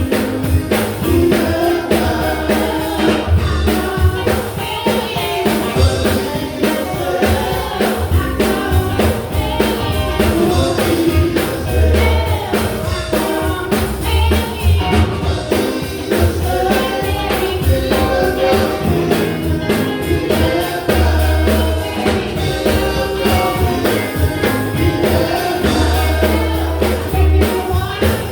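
Live gospel group singing with drum kit, bass, electric guitar and keyboard accompaniment, voices in harmony over a steady beat.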